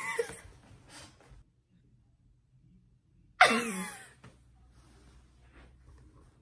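Young woman laughing in short bursts: one right at the start, and a louder, high one about three and a half seconds in that falls in pitch, with quiet breaths between.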